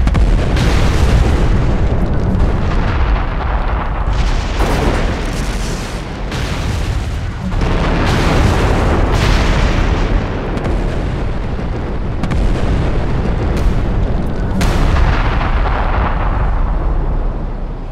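A continuous barrage of bomb explosions: deep rumbling booms running into one another, with fresh blasts breaking in every few seconds.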